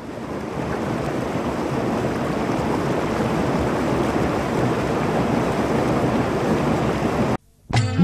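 A steady rushing noise, like surf or wind, that swells in over the first second, holds, and cuts off suddenly about seven seconds in. After a brief gap, devotional music with tabla starts right at the end.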